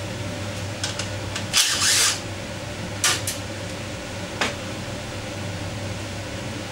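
Small metal clicks and a short rattling scrape as the nuts and washers are taken off the generator's stator winding terminal block and handled, with a few single clinks after the rattle. A steady hum runs underneath.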